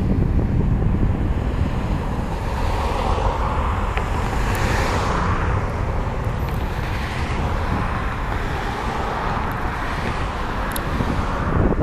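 Wind buffeting the microphone over a steady distant roar of a Boeing 747-400's four jet engines on the takeoff roll. A car passes close by, its tyre noise swelling and fading around the middle.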